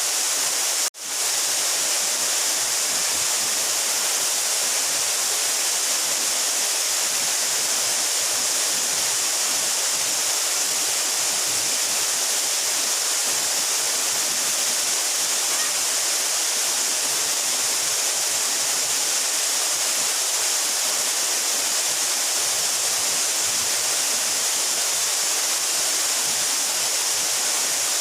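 A 12-metre mountain waterfall crashing down in a steady, loud rush of falling water. The sound cuts out for an instant about a second in.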